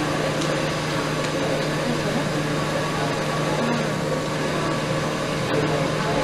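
Steady background din of a crowded indoor hall: a constant low hum under a murmur of distant voices.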